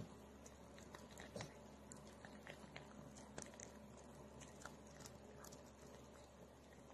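Faint, scattered clicks and smacks of a small dog picking up and chewing treats off the carpet, over a faint steady low hum.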